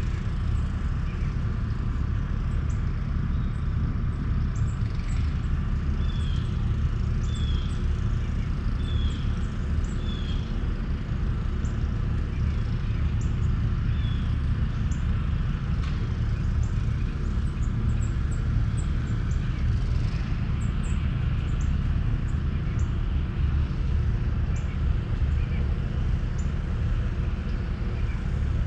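A steady low rumble with birds chirping over it: about six seconds in, a run of four short falling calls about a second and a half apart, then one more, and many brief high chirps.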